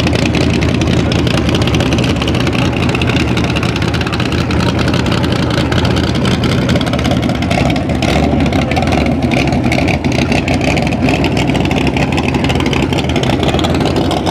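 Ford Mustang drag car's engine running at idle, loud and uneven, with no hard revs.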